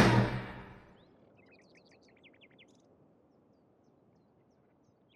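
The closing chord of music dies away within the first second, followed by a brief run of faint bird chirps, quick short notes.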